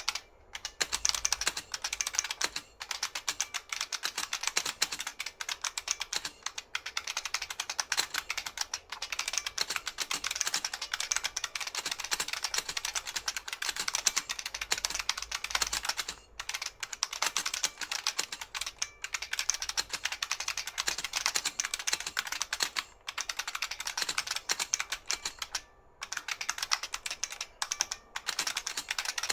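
New Model F F77 mechanical keyboard, with buckling-spring switches, being typed on fast and continuously: a dense stream of key clicks broken by a few short pauses.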